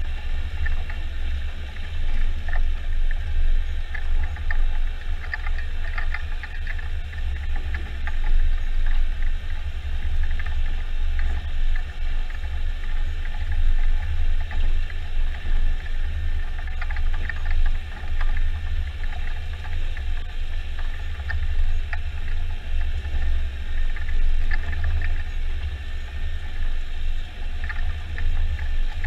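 Jarcrac Dual rubber-tracked forwarder driving loaded with pulpwood: a steady low engine drone, with scattered light clicks and rattles from the machine and its load.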